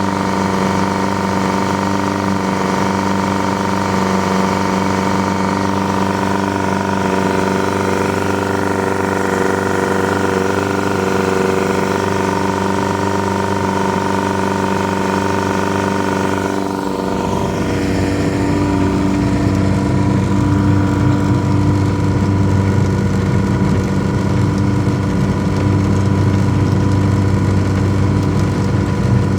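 Yamaha 100 hp outboard motor running steadily on test after an ignition misfire. About 17 seconds in its pitch shifts briefly, and it then runs louder, with a rougher low rumble.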